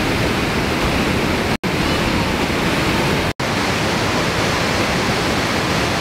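Steady rushing roar of the Afqa waterfall, cutting out for an instant twice, about one and a half and three and a half seconds in.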